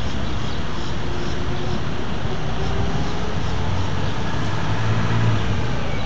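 Steady road traffic noise, with a vehicle's low engine hum swelling briefly about five seconds in.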